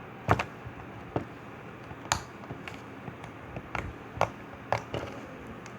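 Stiff slime being kneaded and pressed by hand, giving a dozen or so sharp, irregular pops and clicks.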